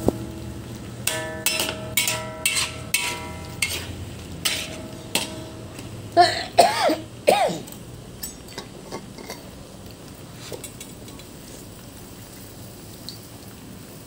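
A metal spoon clinking against a cooking pot several times while stirring, each tap ringing briefly. About six seconds in comes a short run of three coughs.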